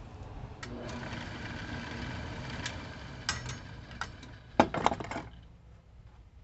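Wood lathe switched on and spinning a cherry bowl blank for a few seconds, its motor running with a steady whir and some ticking, then a cluster of sharp knocks near the end as it stops and goes quiet.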